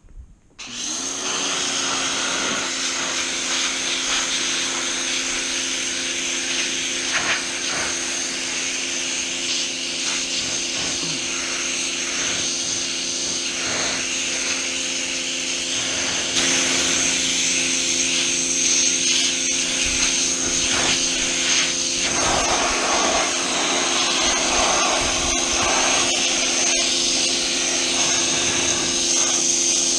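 PowerWorks 2000 PSI electric pressure washer starting up about half a second in and then running steadily, its motor and pump humming under the hiss of the high-pressure spray; it gets louder about halfway through.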